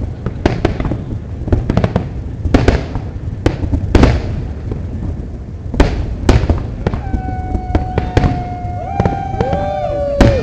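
Fireworks display: an irregular series of sharp bangs and booming explosions over a constant low rumble. A steady held note with overtones comes in during the last few seconds, stepping down in pitch near the end.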